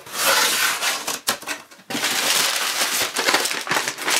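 Crumpled brown kraft packing paper rustling and crinkling as it is pulled out of a cardboard shipping box, in two stretches with a short pause about a second and a half in.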